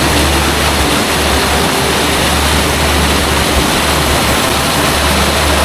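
Waterfall with water rushing and splashing steadily, loud, with a low rumble underneath.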